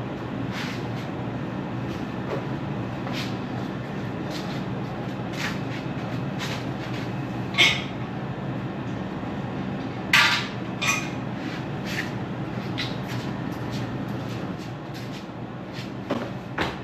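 Scattered metallic clinks and knocks of tools and an exhaust pipe being worked into place on a Model T chassis, with two louder knocks about eight and ten seconds in, over a steady low hum.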